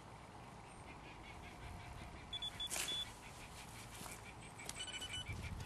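A few short, high electronic beeps from a carp bite alarm, one cluster about halfway through and another near the end, as the line on the rod is moved.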